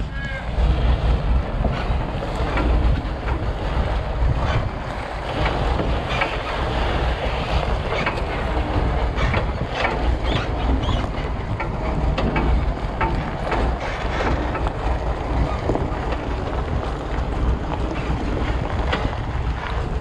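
Steady low rumble of wind buffeting the microphone, with scattered clicks and knocks throughout.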